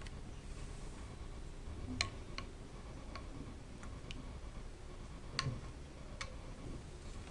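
A handful of faint, sharp clicks at uneven intervals over low background room noise, the loudest about two seconds in and another with a soft thud about five and a half seconds in.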